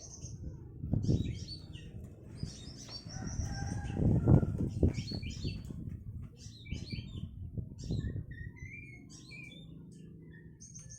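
Oriental magpie-robin (kacer) calling in scattered short chirps and whistled notes, a recording of the kind played to stir a caged kacer into song. Under it a low rumbling noise swells about a second in and is loudest about four seconds in.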